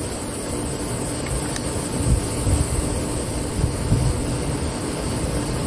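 Wind buffeting the microphone in uneven low rumbles, over a faint steady hum.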